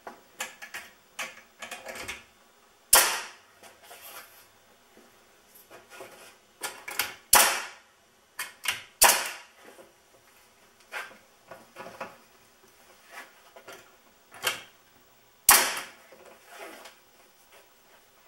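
Nail gun driving nails into 2x4 window framing: about five loud, sharp single shots several seconds apart, with lighter knocks and clicks in between.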